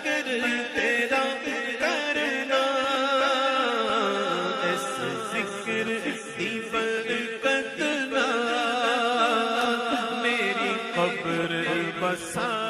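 Male voice singing a naat, an Urdu devotional song, in a chant-like melody with long, wavering ornamented notes.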